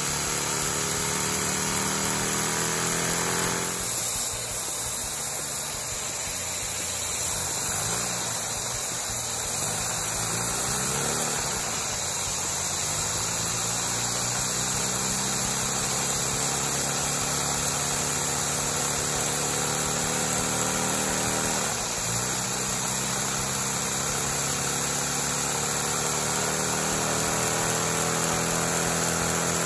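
Compact inline two-cylinder LEGO vacuum engine running fast, its pitch slowly falling and rising a few times as its speed changes.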